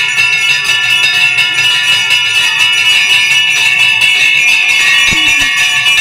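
Hanging metal temple bell rung continuously by hand, the clapper striking over and over so the tones run together into one steady ringing. It is the bell rung at the close of the puja, after the aarti.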